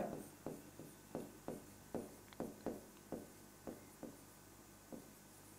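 Marker pen writing capital letters on a whiteboard: a string of about a dozen faint, short taps as each stroke meets the board, roughly two to three a second, thinning out near the end.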